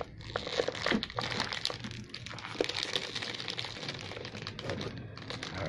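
Clear plastic bag crinkling as the rubber gear-shifter boot packed inside it is handled and turned over, with scattered small crackles.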